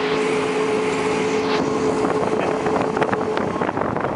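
Coco taxi, a small three-wheeled motor-scooter cab, running along the road, heard from its open cab with wind on the microphone and passing traffic. A steady hum sits over the engine noise and fades out about three seconds in.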